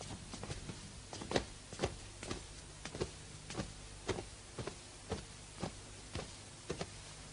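Footsteps of two people walking slowly, an even tread of about two steps a second, over a faint steady low hum.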